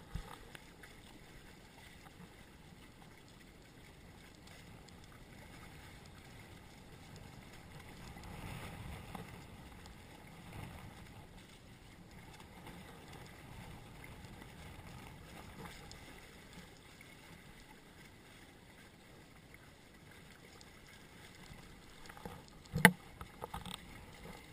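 Steady rush and wash of water along the hulls of a small Hobie Cat catamaran sailing through a choppy sea, swelling slightly now and then. A single sharp knock near the end is the loudest sound.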